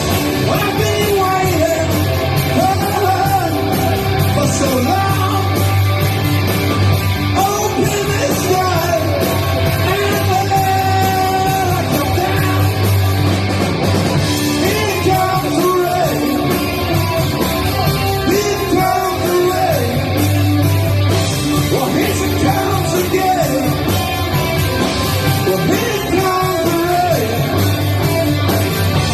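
Rock music: a band with loud distorted guitars and bass, and a singer with shouted vocals.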